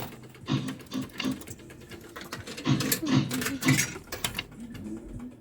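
Fruit machine sound effects during play: a run of short electronic beeps and tones mixed with clicky mechanical strokes.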